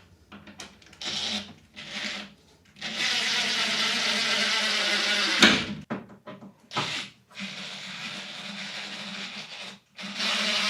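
A small electric power tool running in several bursts, with a steady motor hum under a rush of noise; two bursts are loud and a stretch between them is quieter.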